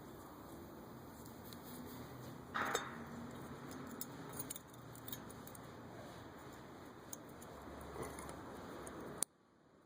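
Light metallic clinking and clicking of small metal parts and tools being handled, with one louder clink about two and a half seconds in and a few smaller ticks after; the sound cuts off suddenly near the end.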